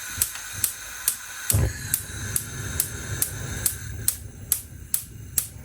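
Gas stove's igniter clicking, about two or three ticks a second; about one and a half seconds in the burner catches and a low, steady flame rumble runs on under the clicks.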